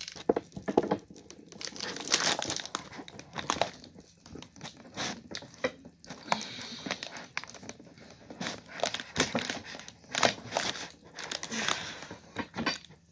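Irregular rustling, crinkling and clicking as metal chair-frame parts are handled and fitted together over cardboard packaging.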